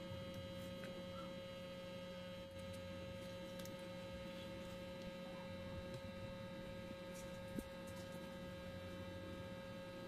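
Steady electrical hum with a constant mid-pitched tone, under faint clicks and rustles of paper stickers being handled. One sharper click comes about seven and a half seconds in.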